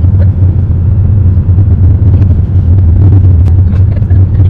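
Steady low rumble of a car driving along a town street, heard from inside the cabin: engine and tyre noise. A faint click comes about three and a half seconds in.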